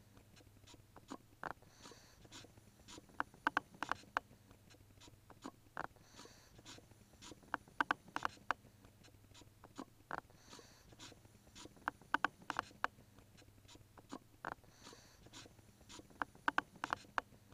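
Quiet, sparse electronic techno beat from a keyboard: a pattern of clicky percussion hits and short pings that repeats about every four and a half seconds, over a low steady hum.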